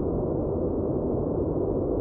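Steady white-noise track playing as a focus backdrop: an even, deep rushing hiss, muffled, with no treble, unchanging throughout.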